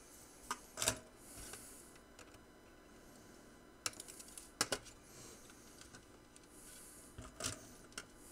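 Light clicks and clacks of a small circuit board and its parts being handled, turned over and set down on a workbench, in three short clusters about a second in, around four to five seconds in and near the end.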